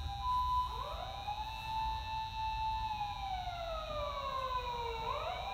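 Emergency vehicle siren: a steady two-tone hi-lo note at the start gives way, about a second in, to a wailing siren that rises, holds, slowly falls and starts rising again near the end.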